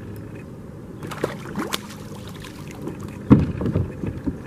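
Knocks and bumps against a kayak while a hooked channel catfish is landed, with a few light clicks and then a louder thump about three seconds in.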